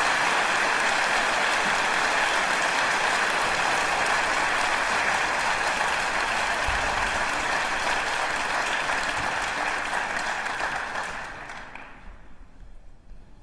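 Audience applauding, dense and steady, fading away near the end.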